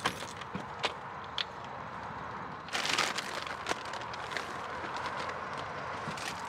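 Plastic shopping bags rustling, with a few light knocks and clicks as groceries are lifted from a metal shopping trolley into a motorhome doorway. The loudest rustle comes about three seconds in, over steady background noise.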